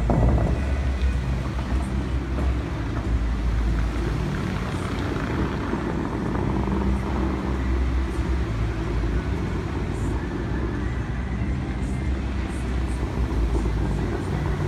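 Bellagio fountain water jets firing and then falling back into the lake, a steady hiss of spray over a low rumble, with a sudden blast right at the start. Sustained low notes of the show's music sound faintly underneath.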